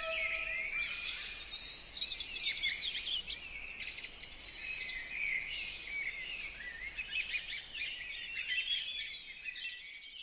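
Several songbirds singing in woodland, a dense chorus of overlapping chirps and trills that fades out near the end.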